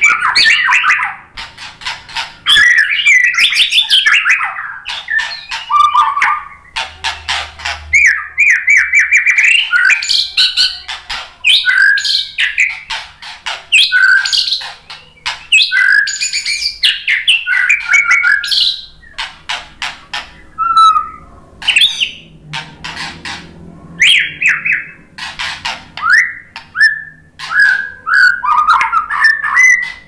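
White-rumped shama (murai batu) singing a long run of varied whistled phrases mixed with sharp clicking notes, with a short pause about two-thirds of the way through.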